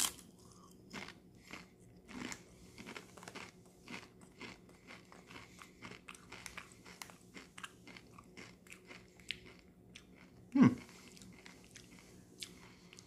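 A loud crunch as a Doritos Spicy Sweet Chili tortilla chip is bitten, then a person chewing it in many short, irregular crunches. About ten and a half seconds in, one short low vocal sound.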